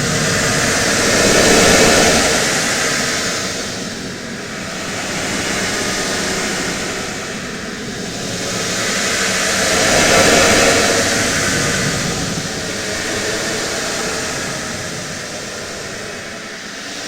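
Outer-space ambience sound effect: a very loud rushing noise that slowly swells and fades, loudest about two seconds in and again about ten seconds in.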